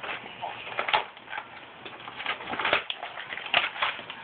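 Foil booster-pack wrapper crinkling and trading cards being handled: an irregular run of sharp crackles and rustles.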